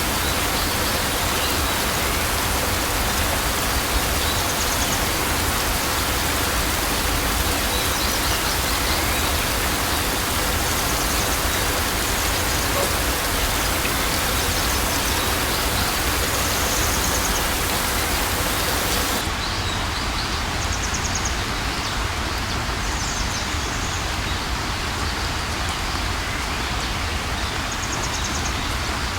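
Steady heavy rain, an even hiss of falling drops. About two-thirds of the way in the sound turns a little duller as the highest hiss drops away, and faint short high chirps recur every few seconds.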